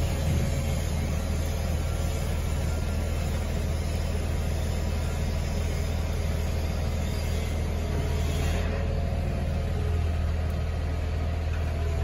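A steady low mechanical hum, like an engine running at idle, under a haze of noise.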